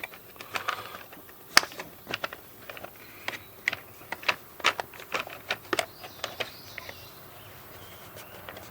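Scattered light clicks and knocks at an irregular pace, as of things being handled on a workbench, with one sharper knock about one and a half seconds in.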